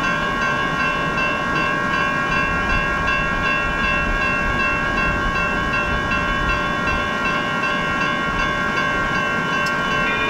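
Railroad grade-crossing warning bells ringing steadily as a set of overlapping high tones, the activated crossing's warning that a train is approaching or passing.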